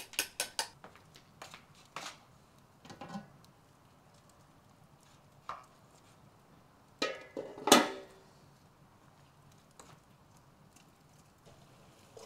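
Stainless-steel bowls and a steel cooking pot knocking and clinking: a quick run of sharp knocks in the first second, a few scattered clinks, then the loudest, ringing metal clank about seven to eight seconds in.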